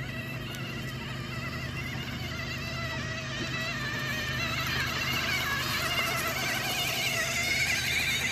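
Small electric motors and gearboxes of a Huina RC excavator whining as it works, with wavering pitch and a low steady hum, growing louder towards the end.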